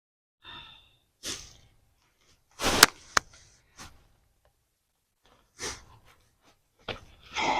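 Hands digging and rustling through potting soil and roots in a grow bag, in short separate scrapes with a couple of sharp clicks about three seconds in.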